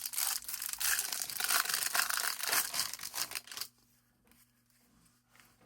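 Foil trading-card pack wrapper being torn open and crinkled, a dense crackling that stops abruptly about three and a half seconds in, followed by faint handling sounds.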